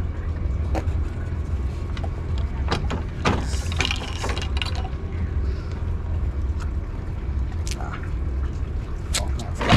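Scattered knocks and clicks of metal gear being handled and worked on, about seven in all and the loudest near the end, over a steady low rumble.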